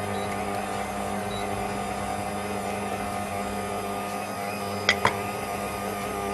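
Electric stand mixer running steadily with its dough hook kneading semolina dough in a stainless steel bowl, a steady motor hum. Two sharp clicks about five seconds in.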